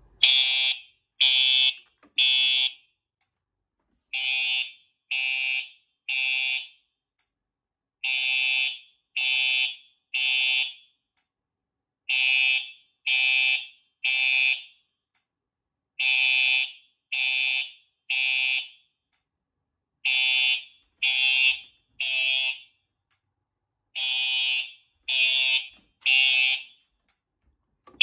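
Simplex SmartSync TrueAlert horn/strobe (4906-9127) sounding the code-3 temporal pattern: three short horn blasts, a pause, and again, about one group every four seconds, seven groups in all. This is the fire-alarm evacuation signal, triggered by activating a Simplex pull station.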